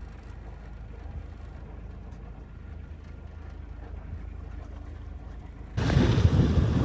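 Moody 31 sailing yacht's auxiliary engine running as a low, steady drone under sail. Near the end it is suddenly drowned by much louder rushing wind and water noise.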